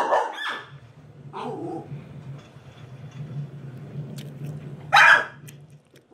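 A dog barking: one loud, short bark about five seconds in and a softer one about a second and a half in, over a low steady hum.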